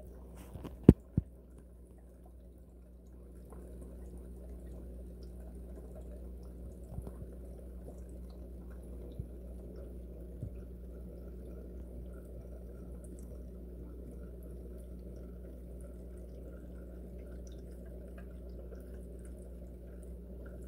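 Faint dripping and trickling water over a steady low hum, with a couple of sharp knocks about a second in.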